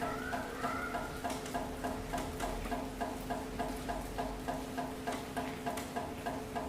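Steady rain hissing and pattering, with a fast, even ticking about five times a second and a low steady hum underneath.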